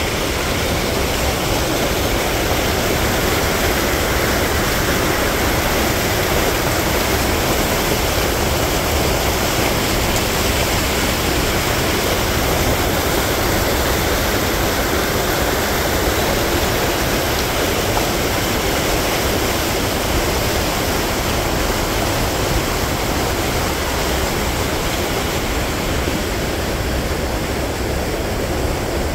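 Water rushing steadily down a concrete canal over a small weir.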